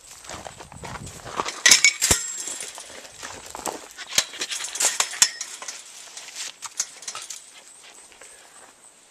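Footsteps crunching over gravel and rough ground, with several sharp clicks and knocks among them, loudest between about one and a half and five seconds in, then quieter near the end.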